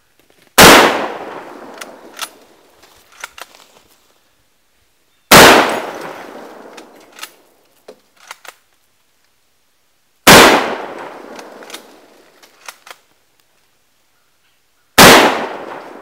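A Mosin-Nagant bolt-action rifle fired four times, evenly spaced about five seconds apart, each loud shot echoing away over a second or two. Faint metallic clicks between the shots come from the bolt being worked to chamber the next round.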